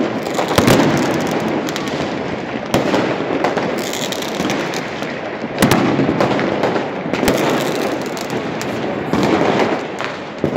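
Fireworks going off: sharp bangs every second or two over a continuous dense crackling, with louder bangs about half a second in, near three seconds and near six seconds.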